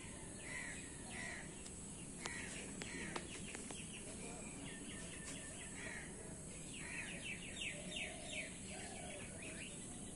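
Outdoor ambience of birds calling, with short scattered calls and a quick run of calls about seven seconds in, over a steady high insect hum.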